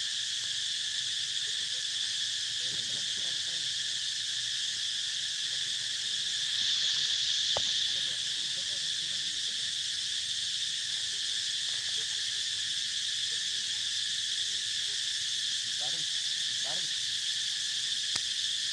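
Steady, continuous drone of a chorus of insects, swelling a little about seven seconds in, with a single sharp click shortly after.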